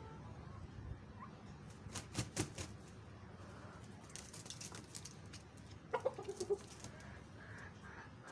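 Chickens clucking: a quick run of about five short clucks about six seconds in, with a few sharp short noises a few seconds earlier.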